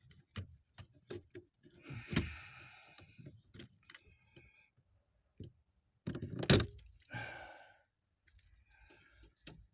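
Hands working wiring connectors and parts under a car's dashboard: scattered plastic clicks and light knocks with brief rustling and scraping, and one louder knock about two-thirds of the way through.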